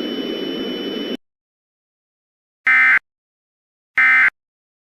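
A steady static hiss with a thin high tone cuts off about a second in. After a pause come two short, identical, buzzing digital bursts about 1.3 s apart: the Emergency Alert System SAME end-of-message data bursts that close an alert.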